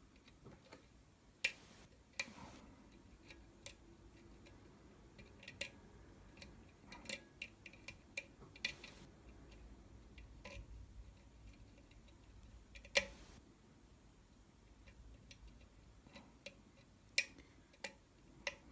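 Irregular small metallic clicks and ticks from a lock pick and tension wrench working the pins of a Falcon pin-tumbler challenge lock, with two sharper clicks, one about a second and a half in and one about two-thirds through.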